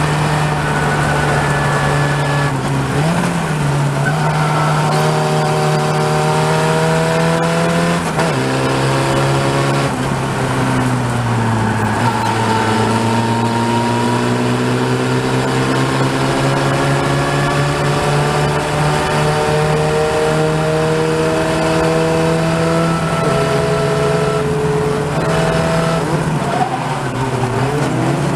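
Open-wheel race car's engine heard from the cockpit at racing speed, its pitch climbing and then dropping back several times as it goes up and down the gears, with one long slow climb in the middle. A steady rush of noise runs under it.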